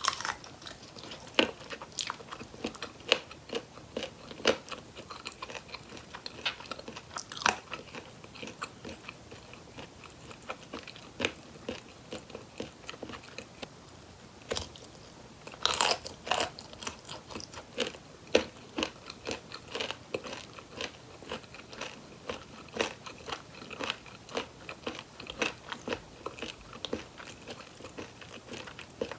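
Close-miked eating of fried chicken drumsticks: crispy batter crunching under repeated bites, with chewing between them. The loudest crunch comes about halfway through.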